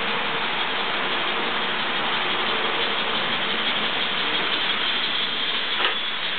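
Model trains running on the layout: a steady whirring rattle of small motors, gears and wheels on the rails, with one sharp click a little before the end.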